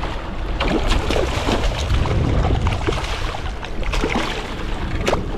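Wind buffeting the microphone on a small boat at sea, a steady low rumble with the water around the hull, broken by scattered short clicks and knocks.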